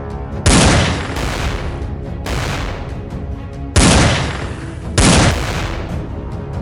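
Three heavy gunshot-like blast sound effects, about half a second in, near four seconds and about five seconds, each dying away over a second, over action background music.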